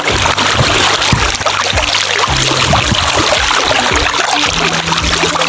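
Sea water sloshing and splashing close to the microphone as someone wades waist-deep through shallow sea: a dense, continuous wash broken by many small splashes.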